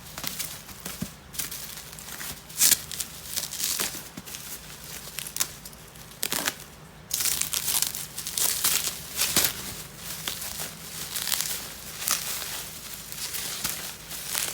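Packaging being handled and pulled apart while a resin figure is unboxed: irregular crinkling and tearing with sharp little crackles. It pauses briefly about two-thirds of the way in, then carries on more densely.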